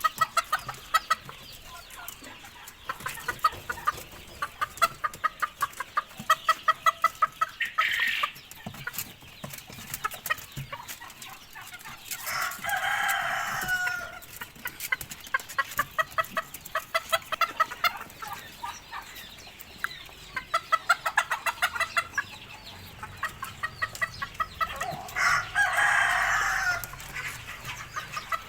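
Chickens clucking in quick runs of short repeated calls, with a rooster crowing three times.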